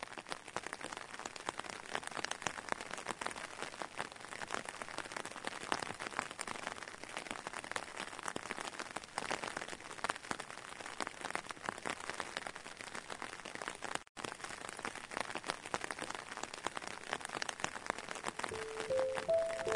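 Rain falling on wet pavement: a steady hiss of drops with many small individual taps, cutting out for an instant about two-thirds of the way through. Background music notes come in near the end.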